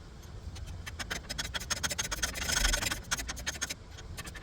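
A quick run of irregular clicks with a short scraping rasp in the middle, from hand-tool work on the truck's wheel hub.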